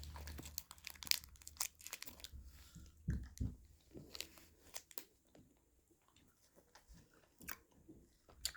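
Close crinkling, tearing and crunching from handling a wrapped tapioca candy, in scattered irregular crackles with a few soft thumps.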